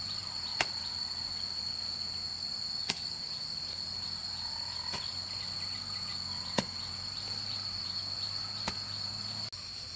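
A hoe chopping into grassy soil five times, roughly every two seconds, over a steady high-pitched insect chorus.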